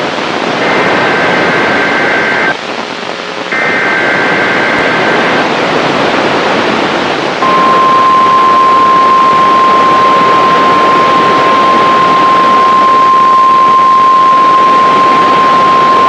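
NOAA Weather Radio Emergency Alert System signal over a hiss of radio static. First come two roughly two-second bursts of the SAME digital data header, a harsh buzzy warble between two high tones. After a short pause, the steady 1050 Hz weather-radio alert tone starts about seven seconds in and holds to the end. This is the alert that announces a newly issued tornado watch.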